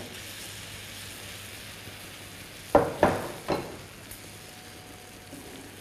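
Syrup ladled over a hot baked nevzine tray, sizzling steadily as it soaks into the hot crust. A few short knocks around three seconds in, from the metal-handled ladle against the pot or tray.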